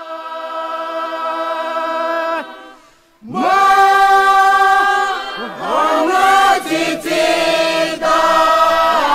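A choir singing in close harmony with no instruments heard. A held chord fades out about two and a half seconds in, and after a short gap the voices come back louder with new held chords and sliding notes.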